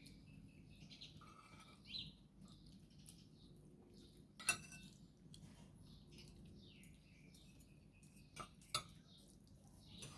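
Faint clinks of cutlery against dishes during a meal, the sharpest about halfway through and two more near the end, with faint chirping in the background.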